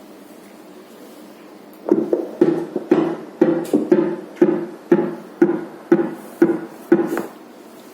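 Fetal Doppler's loudspeaker playing a simulated fetal heartbeat as a regular train of short pulsing beats, two a second, which matches the 120 beats-per-minute test point of the calibration. The beats start about two seconds in and stop near the end.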